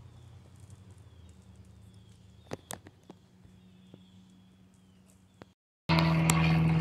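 Quiet outdoor ambience: a faint steady low hum with repeated faint high chirps and a couple of sharp clicks about two and a half seconds in. Near the end the sound drops out briefly and then a much louder steady hum comes in.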